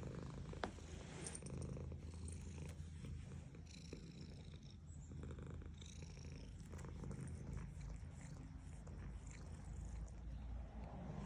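Domestic cat purring steadily while being petted, a continuous low rumble. A brief sharp click sounds about half a second in.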